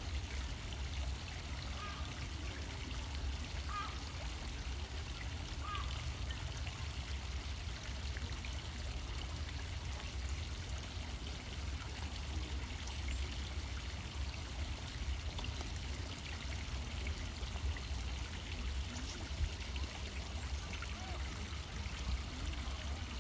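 Steady running water, a continuous splashing flow, with a low rumble underneath.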